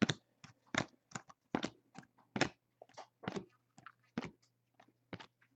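Trading cards being handled and set down: a run of short, irregular clicks and taps, two or three a second, over a faint steady low hum.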